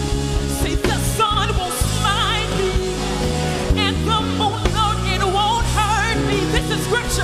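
Live gospel worship music: a band holds steady chords and bass under a wavering lead melody line with heavy vibrato and runs.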